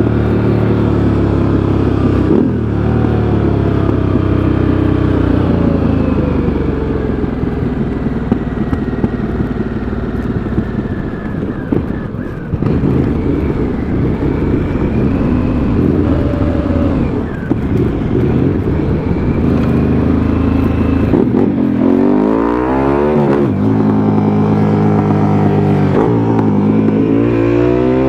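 KTM Super Adventure S V-twin motorcycle engine under way on a mountain road, pulling and easing off, with a short drop in power about twelve seconds in. In the last few seconds the revs rise and fall quickly several times.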